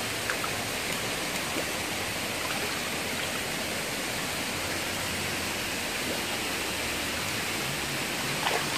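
Shallow, fast-flowing rocky stream rushing steadily, with a couple of faint clicks about a third of a second in and near the end.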